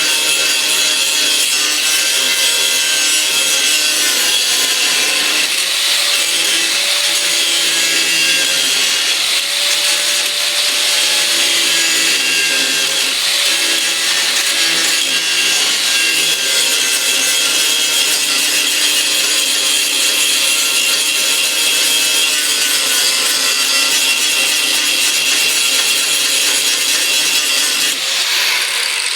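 Handheld power grinder running against metal, cleaning up a weld, its whine wavering as it is pressed into the work. Near the end it comes off the metal and starts to wind down.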